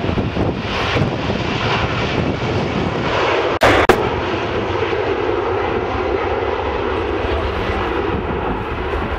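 Twin-engine jet airliner's engines at takeoff thrust, a steady loud roar as it accelerates down the runway on its takeoff roll. A brief sharp crackle about three and a half seconds in.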